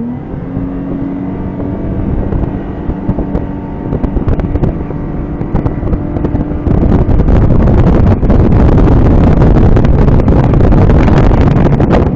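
Outboard motor of a Bennington 2575 RCW tritoon pontoon boat under hard throttle, its pitch rising at first, then holding steady as the boat speeds up toward about 40 mph. About seven seconds in, loud wind buffeting on the microphone swamps the engine as the boat runs through boat wake at speed.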